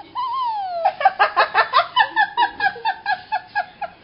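A young girl laughing: a high squeal that falls in pitch, then a quick run of giggles, about six a second, growing softer toward the end.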